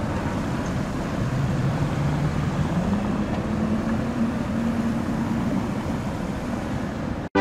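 Tatra T3 tram pulling away, its motor hum rising in pitch over the first few seconds and then holding steady, over steady street noise. The sound cuts off abruptly just before the end.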